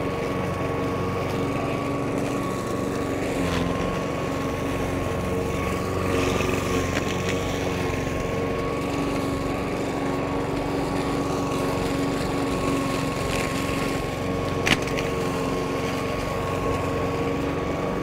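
Hyundai petrol lawn mower running steadily while it cuts through tall weeds such as burdock, collecting them into the grass catcher. There is a single sharp knock about fifteen seconds in.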